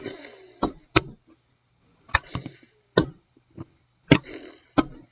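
Plastic Rubik's cubes clacking against each other and the surface in a mock fight: about nine sharp, irregular knocks with brief rattling between them.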